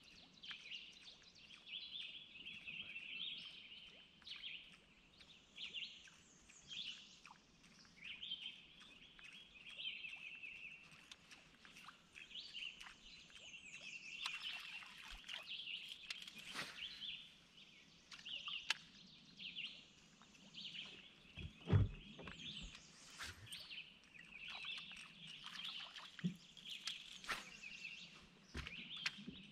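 Several birds chirping and singing continuously in a quiet outdoor setting, with scattered light clicks and one dull thump about 22 seconds in.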